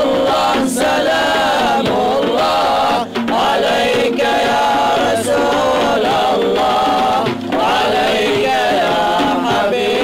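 Male vocal group singing a Turkish ilahi (Sufi hymn) together in long, ornamented melodic lines, accompanied by frame drums, with brief breath pauses about three and seven and a half seconds in.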